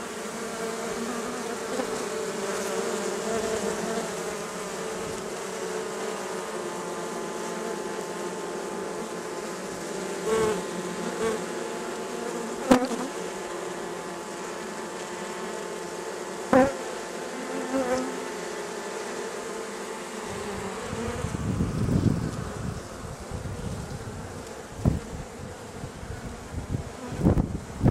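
A honeybee colony buzzing steadily at close range, a dense hum of many bees, with a few sharp clicks partway through. In the last third, low rumbling on the microphone joins the buzz.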